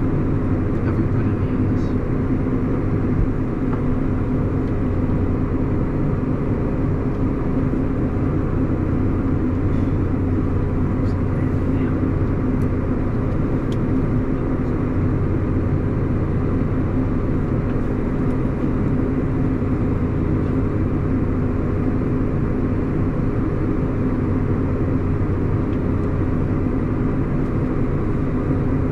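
Diesel engine running steadily at a set speed of about 1200 rpm, driving a PTO-powered auger unloading grain, with an even machine hum that holds throughout.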